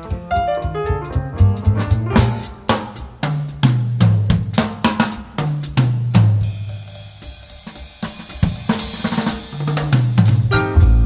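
Background music with a drum-kit beat over a bass line, thinning to a quieter passage about two-thirds of the way through before the beat picks up again.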